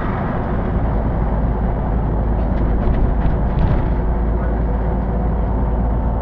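City bus driving along, heard from inside: steady engine and road noise, mostly low in pitch, with a few light rattles in the middle.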